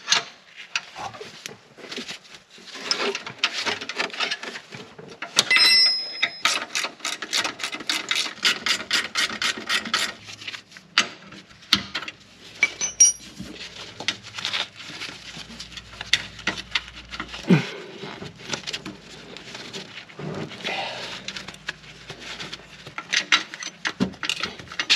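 Hand ratchet wrench clicking as it turns a sway bar bushing bracket bolt, with a fast, even run of clicks lasting about four seconds in the middle. Scattered metal clinks and taps of the tool against suspension parts come around it, including a short ringing clink just before the run.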